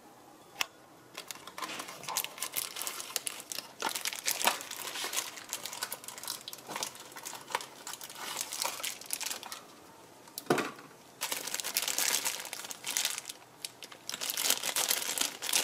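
Packaging handled by hand: a paper box of a new engine sensor opened, then its plastic bag crinkling, in irregular bursts with short pauses. One sharp knock about two-thirds of the way through.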